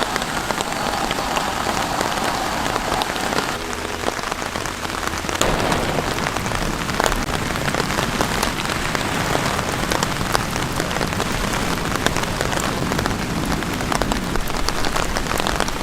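Steady rain falling, a dense patter of many small drop impacts, with the texture shifting briefly around four to five seconds in.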